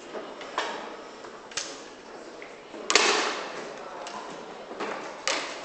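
Foosball ball and rods in play: sharp single clacks of the ball being struck and hitting the table walls, roughly one a second, with the loudest bang about three seconds in.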